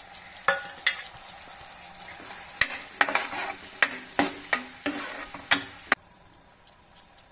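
Masala and chopped tomatoes sizzling in a non-stick pan while a metal ladle stirs them, knocking sharply against the pan about a dozen times. Sizzle and stirring cut off suddenly about six seconds in.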